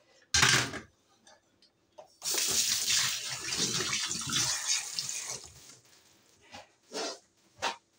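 Water running from a tap into a sink for about three seconds. A short loud knock comes just before it, and a few light clicks come after.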